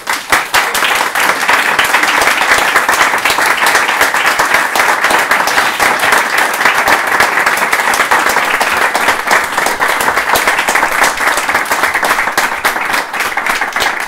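Audience applauding: dense, steady clapping that begins abruptly and thins slightly near the end.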